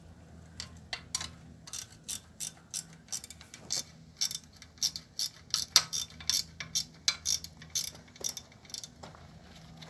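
Socket ratchet wrench clicking in quick, even strokes, about two or three a second, as a 12mm bolt is done up.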